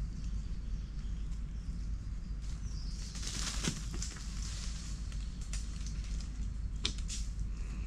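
Forest ambience over a steady low rumble, with dry fallen leaves rustling and crackling. The rustle is loudest a little before the middle, and a few short sharp snaps and crackles come through the rest.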